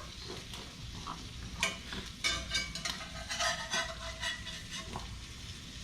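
Ham sizzling in butter in a hot frying pan, with a utensil clicking and scraping against the pan several times in the middle.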